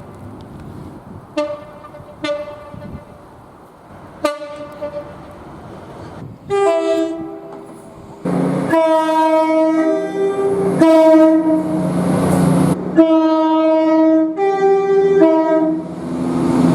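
Train horns sounding: three short single-note toots, then long blasts of a multi-note horn sounding several tones at once, the chord changing between blasts. The noise of the train running lies under the longer blasts.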